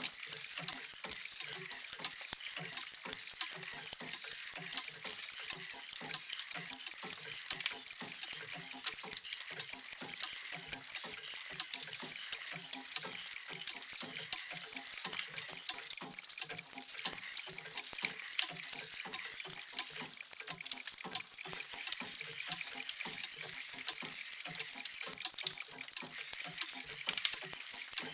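Many mechanical clocks ticking at once, a steady, dense patter of overlapping ticks with softer low tocks beneath.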